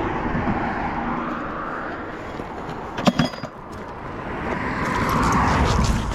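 A vehicle passing on a road, its noise swelling and fading over the last couple of seconds, with a couple of sharp clicks about three seconds in.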